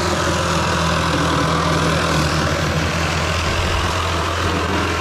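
Engine idling steadily, a constant low drone that holds the same pitch and level throughout.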